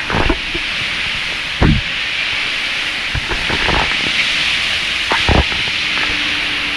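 Steady, loud rushing of fast-flowing water, a hissing roar, with a few dull thumps over it.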